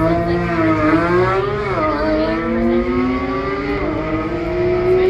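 Porsche sports car engine running hard on the test track, its pitch sliding down and up, with a sudden drop in pitch about four seconds in.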